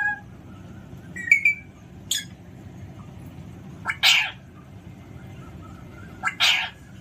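Alexandrine parrot calling: a short gliding chirp about a second in and a brief call at two seconds, then two loud, harsh squawks about two and a half seconds apart.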